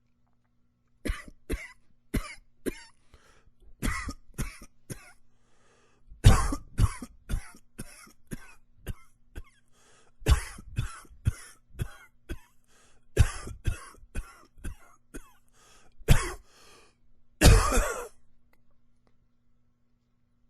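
A man coughing in repeated bouts of several quick coughs each, starting about a second in. A longer final cough comes near the end.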